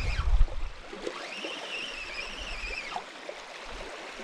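Shimano Ultegra Advance 2500S spinning reel being cranked to bring in a hooked fish: a high whirring whine that rises, holds steady and falls away, with a break near the end. Wind gusts on the microphone in the first half second.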